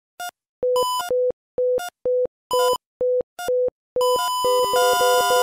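Electronic synthesizer beeps: short pure tones about two a second, alternating with buzzier, richer tones. About four seconds in they thicken into a dense, continuous synth music intro with a repeating beep pattern.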